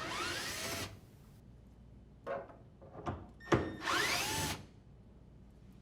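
Cordless drill driver unthreading the dishwasher's mounting screw in two short runs of about a second each, its whine rising as the motor speeds up, with a couple of light clicks between.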